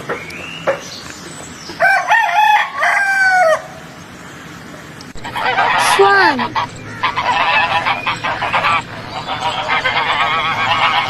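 A rooster crows once, about two seconds in. After a short pause, swans call with rapid, repeated honks that run on to the end.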